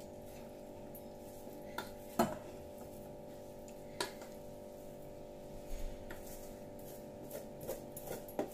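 A serving spoon clinking and scraping against the heavy-bottomed cooking pot now and then as the cooked biryani rice is scooped into a serving bowl, over a faint steady hum.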